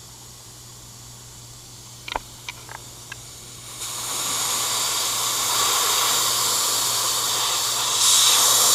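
A few light clicks, then compressed air starts hissing out of an HPA compressor's combined bleed and moisture bleed valve about four seconds in, getting louder near the end: the system being depressurized after a fill to about 4,400 psi.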